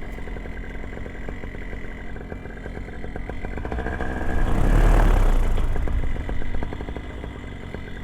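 Paramotor engine running steadily, with a gust of wind buffeting the microphone about halfway through.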